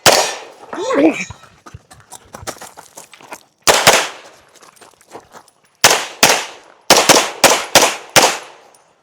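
Handgun shots fired on a USPSA stage: one shot right at the start, another a little before four seconds in, then a fast string of seven shots over about two and a half seconds. Quieter clicks and scuffs of movement fall in the pause between them.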